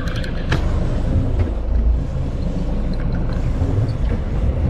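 Steady low rumble of wind and sea on a small boat offshore, with a few light clicks about half a second in as the spinning reel is handled.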